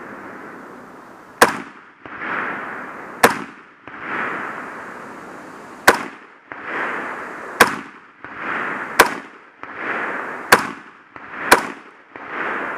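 Rifle shots fired in a timed string: seven shots at an uneven pace, faster toward the end. Each sharp crack is followed by a rolling echo that lasts about a second.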